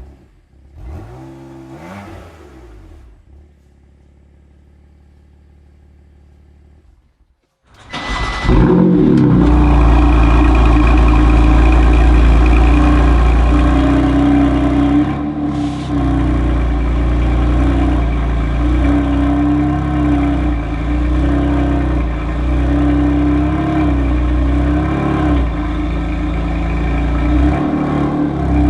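BMW M4 GTS's twin-turbo straight-six: a short rev rising and falling about a second in, then, from about eight seconds in, the engine running loud and steady, with one brief drop in level around fifteen seconds.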